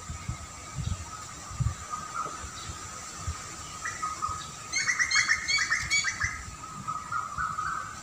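Small songbirds chirping, with a quick run of short, rapid chirps about five seconds in, over a steady high tone. Low gusty rumbles come and go underneath.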